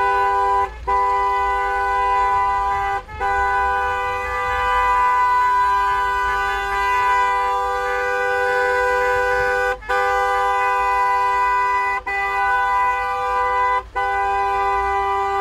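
Two-tone car horn held down in one long, steady sound at a fixed pitch, released for a split second about five times.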